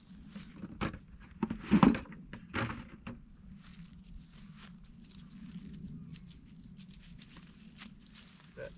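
Rustling and several knocks from handling at a plastic bucket, the loudest about two seconds in, then light crackling steps in dry grass and fallen leaves over a faint steady low hum.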